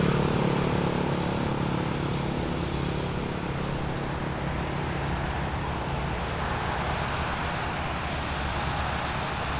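Boeing 767-300F jet engines running, a steady rush of noise with a low hum that fades over the first few seconds.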